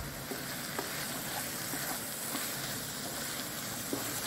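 Minced meat and chopped onion sizzling steadily in a frying pan while a wooden spoon stirs them, with a few light clicks of the spoon against the pan.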